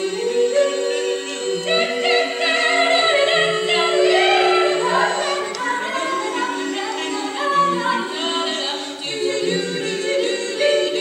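Female barbershop quartet singing a cappella: four voices in close harmony, held chords shifting from one to the next.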